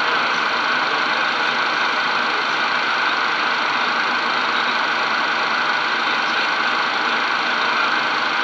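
Steady cockpit noise of a Cessna Citation twin-turbofan business jet in flight on approach, heard inside the cockpit: engine and airflow noise as an even, unchanging hiss.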